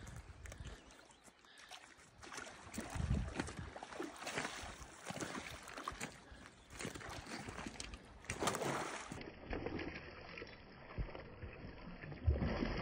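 Hooked spring chinook salmon thrashing at the surface during the fight, making irregular splashes of water. The louder splashes come about two-thirds of the way in and again near the end.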